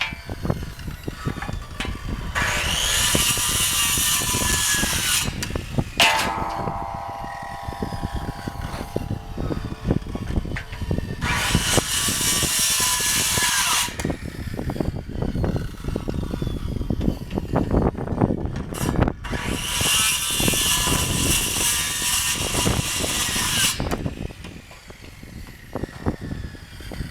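Circular saw cutting Trex fence posts to height: three separate cuts of about three seconds each. After the first cut the blade whines down as it coasts to a stop, and low knocks and rumble come between the cuts.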